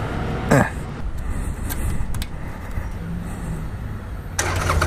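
Harley-Davidson Iron 883's air-cooled V-twin engine idling with a steady low rumble, with a few light clicks in the middle. It gets louder near the end as the bike starts to pull away.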